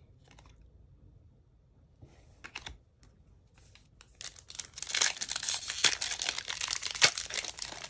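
Trading cards handled quietly for the first few seconds. From about four seconds in, the foil wrapper of a Topps Chrome trading card pack is torn open and crinkles loudly and continuously.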